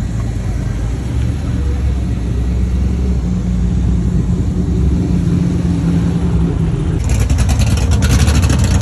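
A vehicle engine idling with a deep, steady hum. About seven seconds in it turns louder and harsher, with a rapid crackle.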